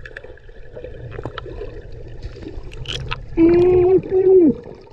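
Water gurgling and sloshing against a camera held underwater. About three and a half seconds in, a person's voice, muffled by the water, calls out twice in long held tones, the second falling away at its end.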